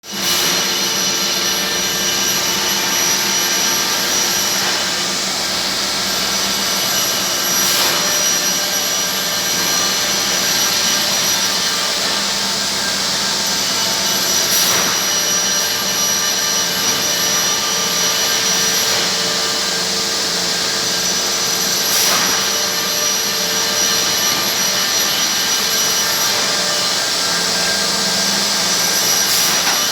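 Automated CNC production line running: a steady hiss with several steady whining tones and a low hum, with occasional sharp knocks from the machinery every several seconds.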